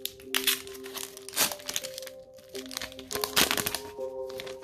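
Foil Pokémon booster pack wrapper crinkling as it is torn open by hand, in several short bursts, the loudest about three and a half seconds in. Soft background music plays under it.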